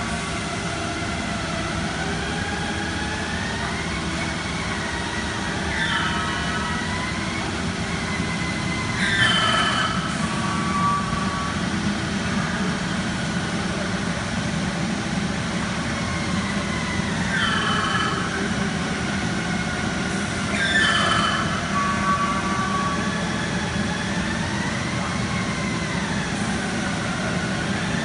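Uniteam five-axis CNC machining centre running with a steady hum. Its axis drives whine as the axes move, rising and falling in pitch, with a few quick falling whines as moves slow to a stop.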